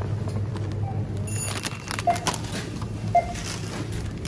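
Supermarket background: a steady low hum, with a few short beeps about a second apart in the second half and light clatter of goods.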